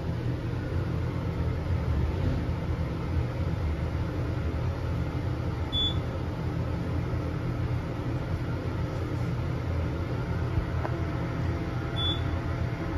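KONE hydraulic elevator car travelling, with a steady low hum through the cab. Two short high beeps sound about six seconds apart.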